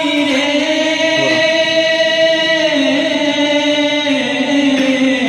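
Urdu naat sung a cappella. A voice stretches one word into long held notes that bend slowly up and down, over layered choir-like vocals and no instruments.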